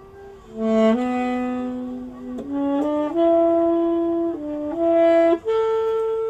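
Background music: a slow melody of long held notes that step up and down, starting about half a second in.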